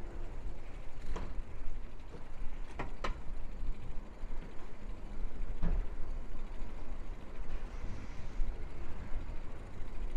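Street ambience heard from a moving bicycle: a steady low rumble of road and wind noise, with a few sharp clicks or knocks, two of them close together about three seconds in.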